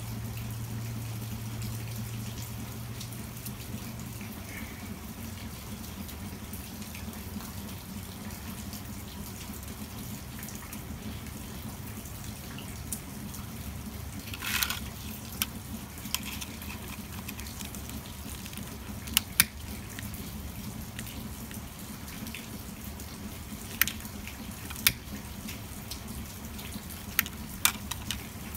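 A steady low hiss, with a short rustle about halfway through, then a series of sharp single clicks in the last ten seconds: a lighter being clicked until it catches and lights.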